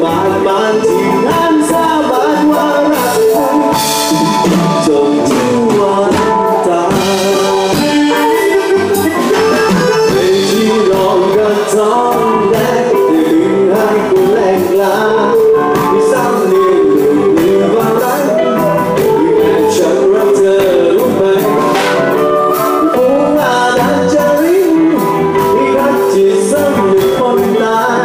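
Live band playing a reggae-style song loud and steady through the stage PA: electric guitars and a drum kit, with sung vocals.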